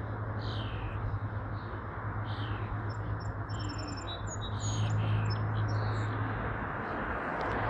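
Birds chirping: repeated short falling calls, with a run of higher, thinner whistled notes in the middle, over a steady low hum and a noisy background.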